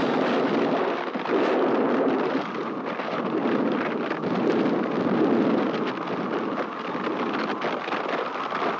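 Storm sound effects: a dense, steady hiss of rain, with surging swells and crackling thunder-like crashes.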